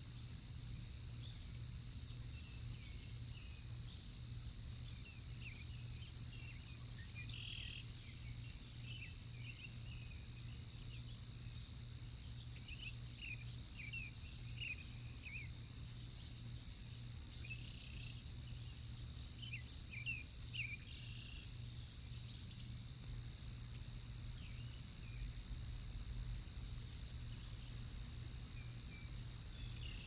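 Bald eagles squeeing: several short runs of quick, high squealing notes, over a steady hum and insect drone.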